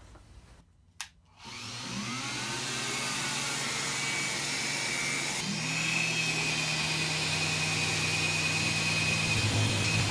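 A click about a second in, then a Festool Pro 5 LTD random orbital sander with its dust extractor starts up and runs steadily with a high whine, sanding a redwood panel with 150-grit Granat paper. It steps up in level about halfway through and runs smoothly without jerking, its replaced bearing flange having cured the earlier fault.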